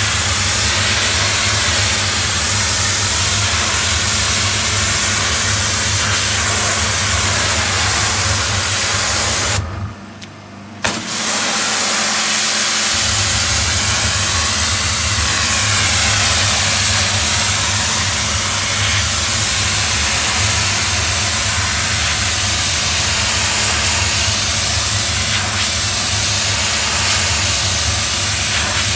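Doff superheated steam-cleaning lance spraying, a loud steady hiss of high-temperature water and steam striking patio slabs, over a steady low engine hum from the machine. About ten seconds in the spray cuts off for about a second, and the hum returns a couple of seconds after the hiss.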